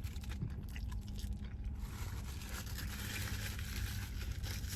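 A person biting into a burrito and chewing it, with soft crunching and scraping noises that grow busier about halfway through, over a steady low rumble.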